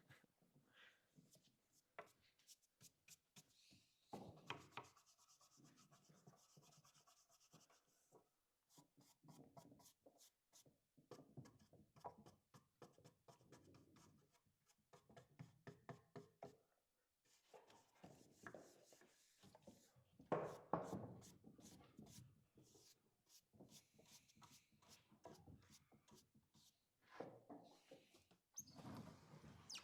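Faint scratching and rubbing with many small clicks and knocks, a few louder handling clusters among them.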